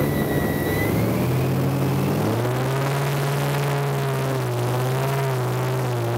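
Airboat's engine and propeller running at speed. The engine note climbs about two seconds in and then holds steady.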